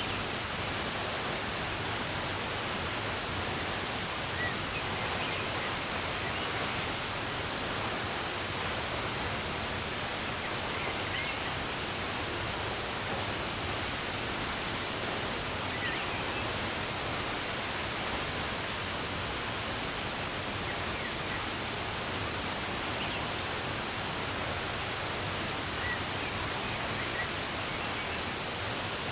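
Steady rush of running water, with faint bird chirps scattered here and there.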